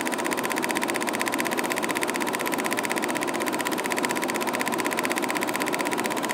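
A steady, rapidly pulsing machine-like buzz with a constant hum beneath it, starting abruptly after a brief silence and cutting off abruptly just before the end.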